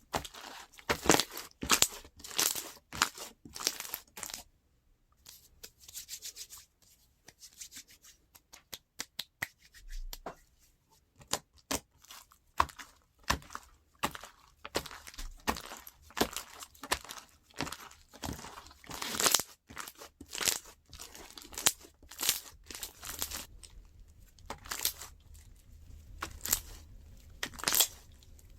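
Slime being squished, stretched and pressed by hand, giving off irregular clusters of sharp sticky crackles and pops.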